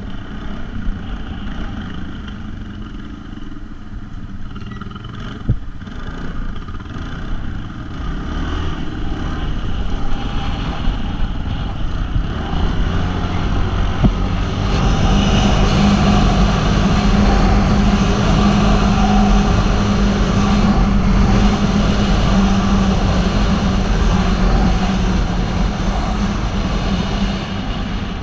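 ATV engine running while riding, with wind noise over it. It builds from about eight seconds in to a steady drone at speed, then eases off near the end. A couple of single knocks break in along the way.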